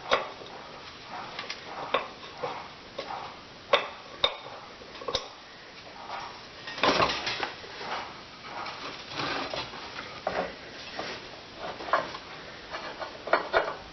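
Metal parts clinking and knocking as engine spacers are fitted between a V-twin engine and a steel garden tractor frame: scattered sharp taps, with a longer clatter about seven seconds in.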